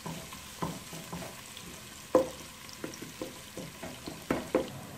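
Sliced onions frying in oil with a faint steady sizzle while a spatula stirs them, knocking and scraping against the pot in irregular strokes. The loudest knock comes about two seconds in.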